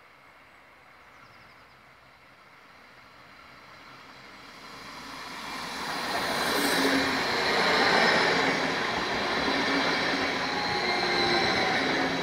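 Double-deck electric multiple-unit train approaching and passing close by: faint at first, growing louder from about four seconds in and loudest as the front goes past, then a steady rush of wheels on rail with steady whining tones as the coaches go by.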